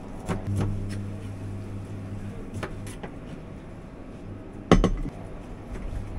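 Food-truck kitchen clatter: a few light clicks and knocks of a knife and utensils, and one loud clank of metal cookware about three quarters of the way through, over a steady low hum of kitchen equipment.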